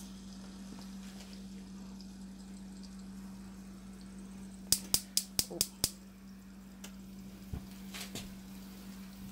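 Seasoned pork chops sizzling quietly in olive oil in a pan, over a steady low hum. About five seconds in comes a quick run of six sharp clicks.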